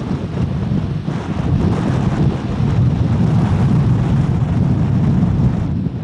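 Strong wind buffeting the microphone: a loud, low, noisy rush that wavers slightly in strength.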